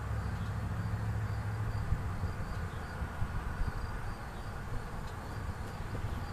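Insects chirping in a repeating pattern of short high-pitched pulses over a steady low rumble.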